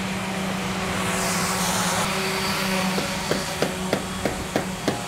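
Metabo random orbital sanders running steadily on teak boards, a continuous buzzing drone. In the second half a regular tapping joins in, about three taps a second.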